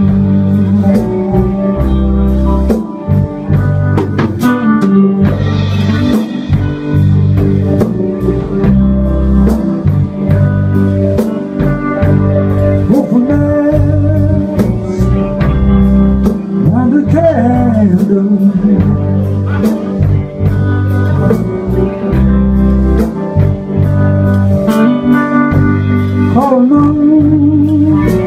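Live band playing loud blues-style music: electric guitar over a drum kit keeping a steady beat, with a heavy low end and a few bent notes.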